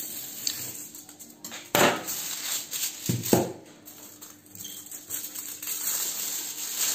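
Aluminium foil being torn from its roll and crinkled as it is folded into a packet around small wood smoking chips, with two sharp loud tears or crackles about two and three seconds in, then steady crinkling.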